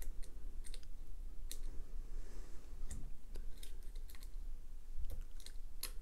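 Light, irregular metallic clicks and scratches of a hook pick working the pins inside a small brass desk-lock cylinder held under a tension wrench.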